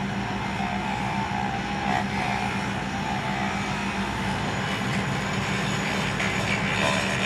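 Steady machine noise from powered track-work equipment running continuously, a low hum with a wavering higher tone over it.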